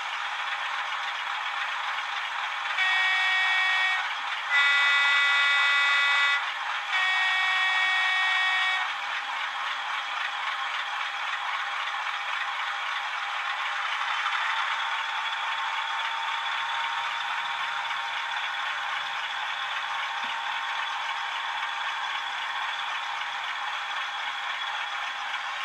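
Several OO gauge DCC sound-fitted diesel locomotive models (Class 37, 50 and 66) ticking over together through their small onboard speakers: a thin, steady engine sound with no bass. A few seconds in, a two-tone locomotive horn sounds three times, high, low, high, each about a second and a half long.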